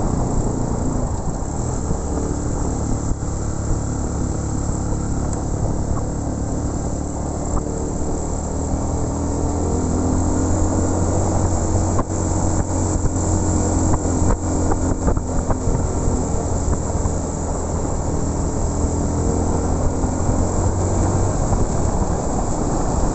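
Motorcycle engine running steadily while riding, its hum rising a little in pitch partway through and dropping away near the end, over steady wind rush on the microphone and tyre noise.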